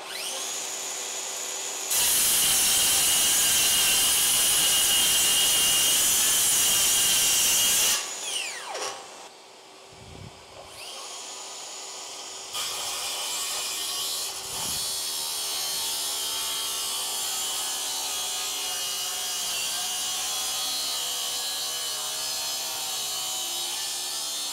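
Bosch GKS18V-25GCN 18V brushless circular saw cutting along a guide track through a wood panel. There are two cuts: one of about six seconds, then the saw winds down with a falling whine, spins back up, and makes a second, longer cut that lasts nearly to the end. A steady hum runs under both cuts and through the pause, likely the dust extractor connected to the saw.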